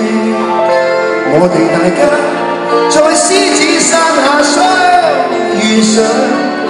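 Live concert music: a band with acoustic guitar, with a singing voice over it.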